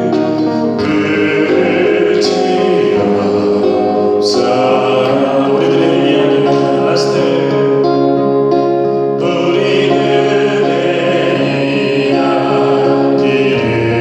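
A group of voices singing a slow song together over instrumental accompaniment.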